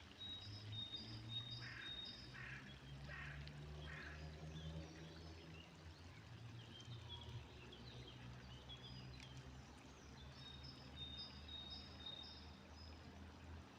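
A small songbird repeating short high notes, with a duck quacking four times between about one and a half and four seconds in. A low steady hum runs underneath.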